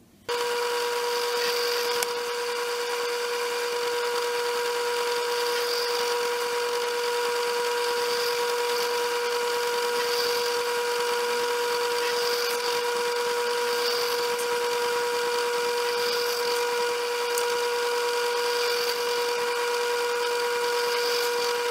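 Drill press motor running steadily while a 5/64-inch bit drills a row of small holes in a board. It makes a constant high hum with a thin whine above it.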